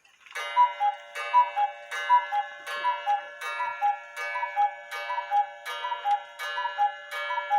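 Repaired chalet cuckoo clock, fitted with its back door, calling the hour. It gives a steady run of two-note cuckoo calls, high then low, each with a click from the bellows and bird mechanism. The calls repeat about every three-quarters of a second, about ten of them here.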